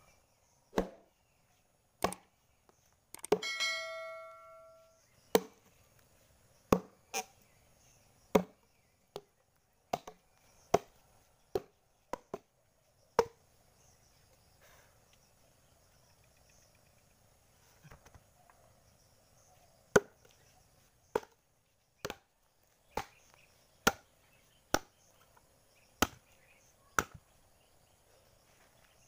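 Steel axe chopping into a wooden log: single sharp blows every second or so, with a pause of several seconds in the middle. One blow a few seconds in leaves a metallic ring that dies away over about a second and a half.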